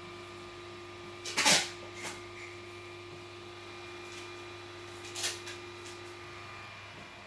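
Steady whir and faint hum of an Intel stock CPU cooler fan running on a powered-up test rig, broken by a few short, loud noisy bursts of unclear source, the loudest about one and a half seconds in and another about five seconds in.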